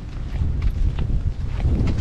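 Footsteps walking, heard as irregular short clicks, with wind rumbling on the microphone.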